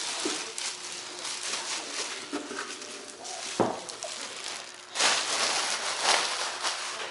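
Packing material rustling as parts are handled, with one sharp knock about three and a half seconds in and louder rustling a little after five seconds.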